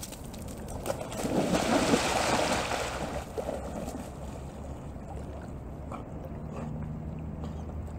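A Labrador splashing into a pond: a loud splash about a second in that lasts about two seconds, then quieter sloshing of water as the dog swims out.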